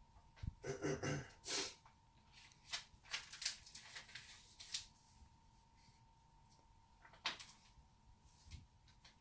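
Paper pages of a small book rustling and being turned by hand, in short bursts about a second in, again between three and five seconds in, and once near seven seconds, over a faint steady hum.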